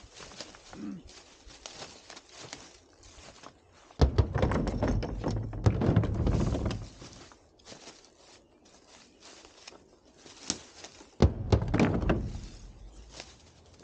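Rocks dropped into a pickup truck's bed: a heavy thunk about four seconds in and another near the end, each followed by a second or more of stones clattering and rolling. Between them, faint footsteps and rustling in dry leaves.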